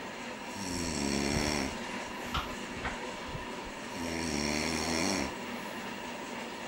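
A man snoring: two long snores about three seconds apart, each lasting over a second, over a steady background hum, with a couple of faint clicks in between.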